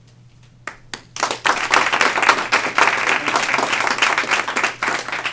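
Audience applauding: a couple of single claps about a second in, then steady applause that begins to die away near the end.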